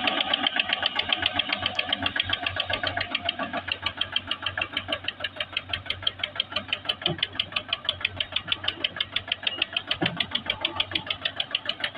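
Eicher 242 tractor's diesel engine labouring under heavy load, hauling a loaded trolley up a sand slope, with a rapid, even exhaust beat.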